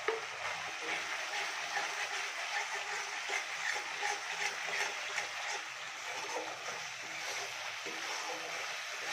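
Mustard-paste spice masala sizzling and crackling in hot oil in a kadai as it is fried down.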